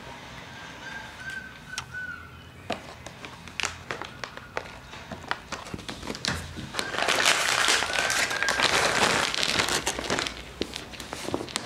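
Scattered sharp clicks and taps on a wooden floor as cats move about and go after dropped cat treats. From about seven seconds in comes a loud crinkling rustle lasting about three seconds.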